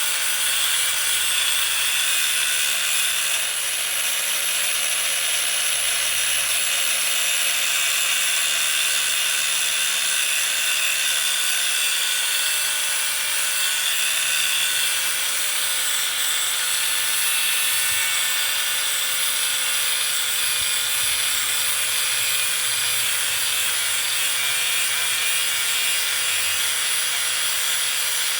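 A metalworking power tool running steadily, a continuous high hiss with a steady whine through it and no pauses.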